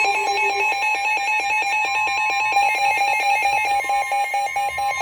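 Emergency Alert System attention signal: a shrill electronic two-tone alarm, pulsing rapidly and evenly, that announces an incoming severe thunderstorm warning.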